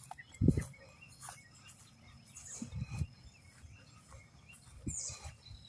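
Faint bird chirps and a steady insect call outdoors, broken by a few low thumps, the loudest about half a second in.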